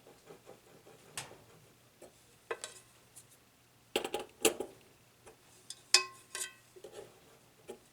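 Small metal parts and hand tools clicking and clinking in irregular knocks, a few with a brief ringing tone, as a turntable is worked on by hand.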